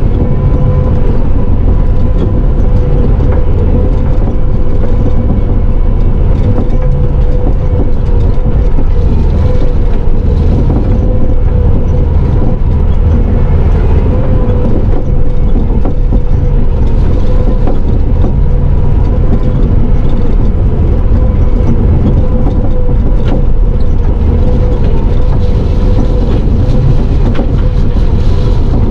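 Bobcat T650 compact track loader's diesel engine running steadily, heard from inside the cab, with a constant high whine over a heavy low rumble.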